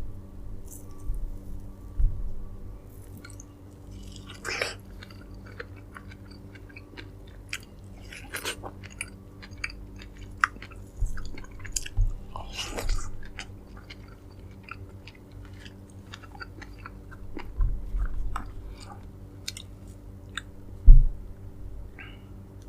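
Close-miked chewing and biting of dragon fruit: irregular wet smacks and small clicks from the mouth. A few dull low thumps are scattered through it, the loudest near the end, over a steady low hum.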